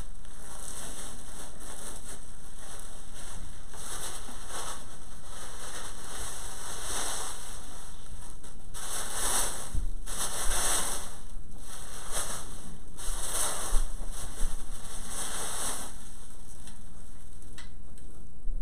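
Plastic packing wrap rustling and crinkling as it is pulled off a telescope by hand, continuous and uneven, with louder, busier crinkles in the second half.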